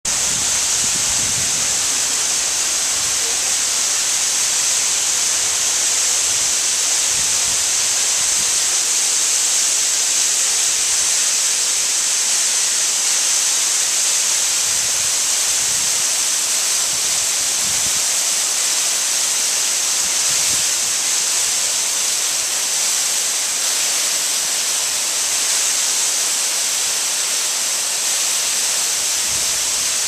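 Thin waterfall spilling over a rock ledge and splashing onto stone below, heard close up: a loud, steady hiss of falling water.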